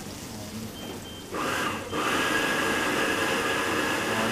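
Stir-frying in a wok on a gas burner: a steady rushing hiss comes on suddenly about a second in and keeps going.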